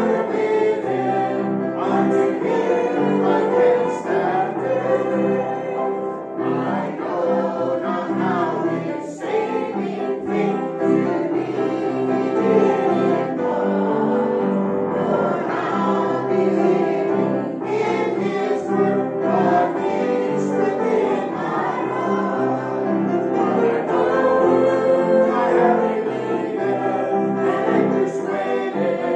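Small church congregation singing a hymn together.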